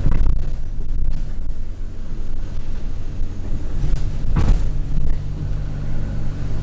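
Alexander Dennis Enviro 200 bus heard from inside while under way: a steady low engine drone with the body rattling, and sharp knocks at the start and twice about four seconds in.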